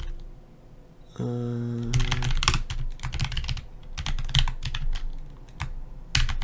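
Typing on a computer keyboard: a run of quick key clicks, with a short steady hum just after a second in.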